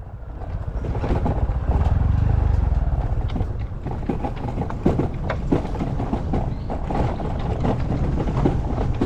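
Honda Super Cub's small single-cylinder four-stroke engine running as the bike is ridden along a rough forest track, loudest about two seconds in. From about halfway on, many sharp knocks and rattles come through as the bike goes over the uneven ground.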